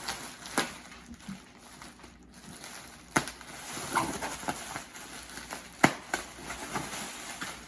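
Packaging being handled and unwrapped by hand: soft rustling and crinkling with a few sharp clicks or taps, the loudest about six seconds in.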